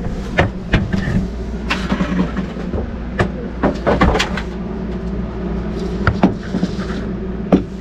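Scattered sharp clicks and knocks of things being handled over a steady low mechanical hum.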